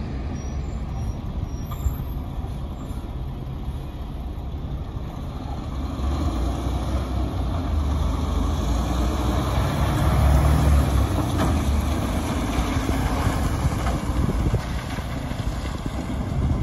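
Diesel engine of a Peterbilt semi tractor pulling a dump trailer, rumbling as it pulls out and drives past. It grows louder, is loudest about two-thirds of the way through as the truck goes by, then fades as it moves away.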